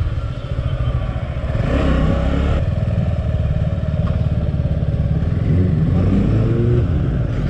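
Suzuki Gixxer 250's single-cylinder engine running at low speed as the motorcycle rolls slowly along, a steady low rumble with a few short rises in pitch in the second half.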